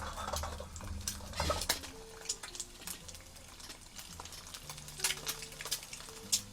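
Eggs frying in hot oil in a pan, the oil spattering with scattered sharp pops and crackles, along with a few utensil clinks against the pan. A faint melody of steady tones plays underneath.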